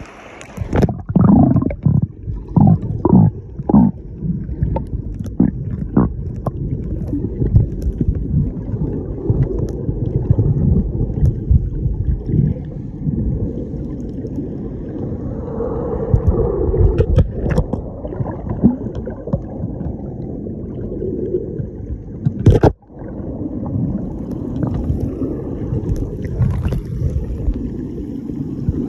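Sea water sloshing around a camera held at the water's edge, heard as a heavy low rumble with a run of hard knocks in the first few seconds and one sharp knock about twenty-two seconds in.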